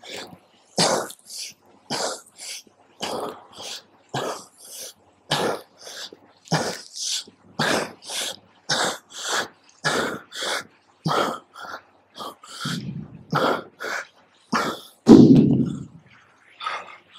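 Hard rhythmic breathing of a man straining through a set of heavy single-arm dumbbell rows: short forceful breaths in and out through the mouth, about two a second. A louder, deeper thump about fifteen seconds in is the loudest sound.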